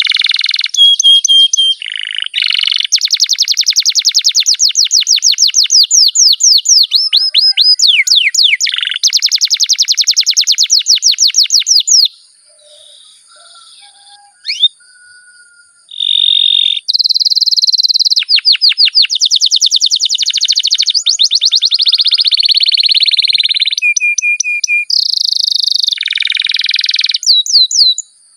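Domestic canary singing long rolling trills of rapidly repeated notes. The song breaks off for about four seconds midway, with only a few faint chirps, then the rolls start again.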